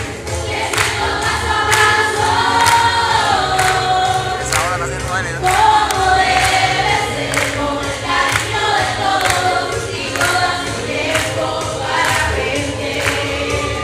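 A large group of young voices singing a pop song together into stage microphones, over music with a steady beat and bass.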